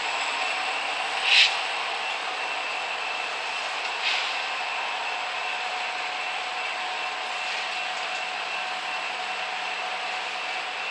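Union Pacific freight train of boxcars rolling past: a steady rolling noise with a thin, steady high tone over it. Two short, sharp, higher sounds stand out, a loud one about a second and a half in and a softer one about four seconds in.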